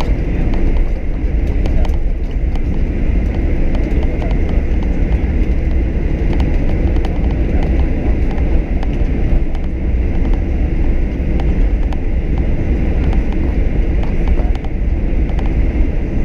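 Steady loud rumble inside the cabin of a Boeing 737-800, its CFM56-7B engines and the airflow running evenly, with light knocks and rattles throughout.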